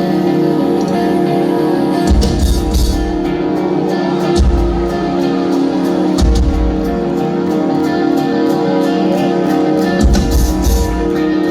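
Live post-hardcore band playing: sustained, ringing guitar chords over drums, with a handful of heavy low bass-and-kick hits and steady cymbal strikes.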